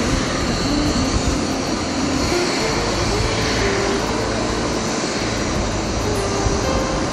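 Twin-jet airliner's engines running as it taxis: a steady, even noise with no breaks. A slow melody of background music plays over it.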